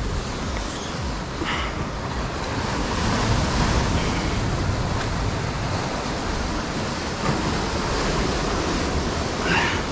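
Ocean surf washing in against the rocks, an even rushing that swells a little a few seconds in, with wind on the microphone.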